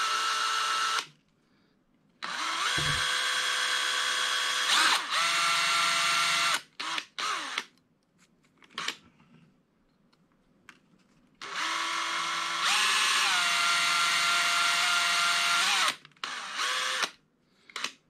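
Cordless drill with a 5/64-inch bit drilling out the posts in a die-cast toy car's base. The motor whines steadily in runs of a few seconds, stopping between them, with a few short blips of the trigger and a step up in pitch partway through the last long run.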